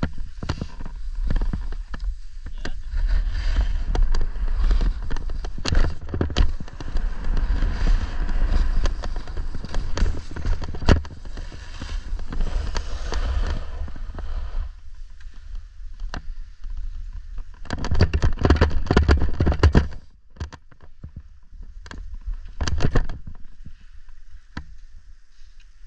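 Wind rumbling on the microphone with the hiss of skis or a snowboard sliding over snow, broken by scattered knocks and handling bumps; the sliding hiss fades out about two-thirds of the way through and returns in a short loud burst a few seconds later.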